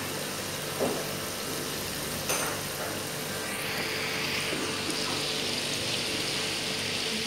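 Raw chicken strips sizzling and simmering in a nonstick frying pan as the meat gives off its water; the sizzle grows stronger about halfway through, with a couple of faint knocks early on.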